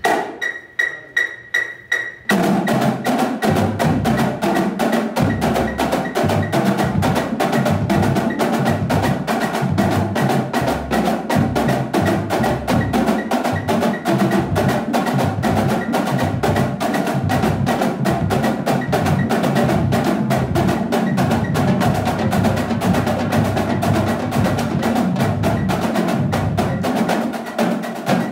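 A drumline snare section playing in unison on marching snare drums, a dense, fast rudimental passage of crisp stick strokes. It starts about two seconds in, after a steady beeping count of about three beeps a second, and thins briefly near the end.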